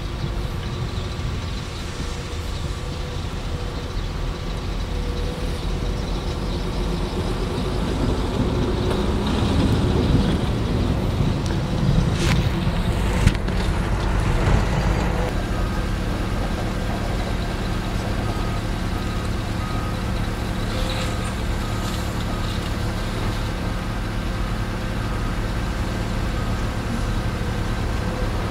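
Diesel engines of a crawler excavator and dump trucks running steadily. About a third of the way in, a bucket-load of gravel pours into a steel truck bed with a few clanks. In the second half a beeping alarm repeats about once a second.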